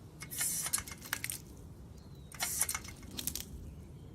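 Glass bottles clinking and rattling in three or four short bursts, with a few sharp clicks, as a dog pulls a bottle of beer loose.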